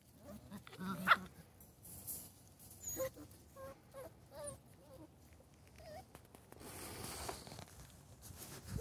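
Shetland sheepdog puppies whining and yipping: a string of short, high, wavering squeaks, the loudest about a second in. A brief rustling noise comes about two-thirds of the way through.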